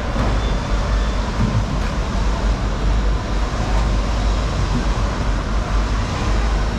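Steady rumbling noise, heaviest in the low end, with a few faint knocks.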